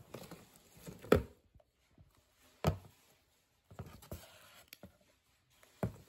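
Handling noises from a plastic hair dryer and its cardboard box: three short sharp knocks with light rustling between them. The dryer is not running.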